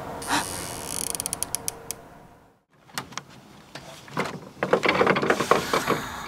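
A quick run of clicks that speeds up in the first two seconds. After a brief hush come footsteps in boots on snow-covered wooden steps, crunching and creaking and growing denser toward the end.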